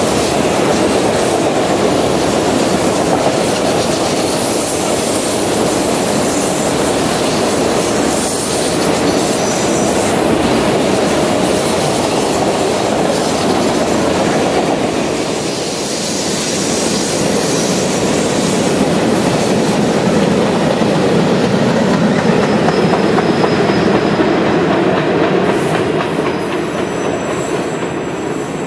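Canadian National freight train cars rolling past: a loud, steady noise of steel wheels on rail. A thin high wheel squeal comes in near the end.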